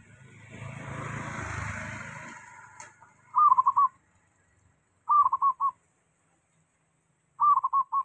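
Caged zebra dove (perkutut) cooing three times, each phrase a longer first note followed by about three short clipped notes. Before the first coo, a passing vehicle swells and fades over the first three seconds.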